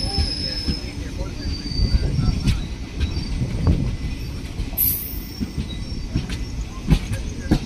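Express passenger train rolling on the rails: a steady low rumble with irregular wheel knocks and a thin high wheel squeal now and then. There is a short high hiss about five seconds in.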